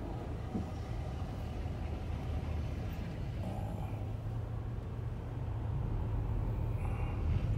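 Low, steady vehicle rumble heard from inside a car's cabin as it idles at a light, growing a little louder near the end as a city bus turns across close in front.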